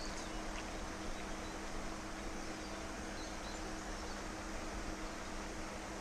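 Steady outdoor background hiss with a faint low hum, broken only by a few faint, short high chirps.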